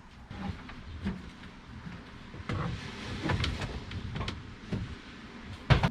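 Irregular knocks, clunks and rustling as the freshly removed sunroof assembly of a car is handled, with a sharp thump near the end.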